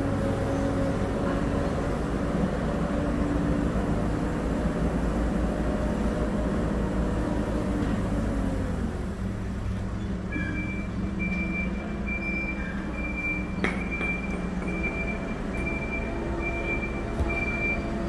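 Hidromek 102 S backhoe loader's diesel engine running as the machine moves along the street. About ten seconds in, its reversing alarm starts, a high beep repeating evenly as the machine backs up. There is one sharp click partway through.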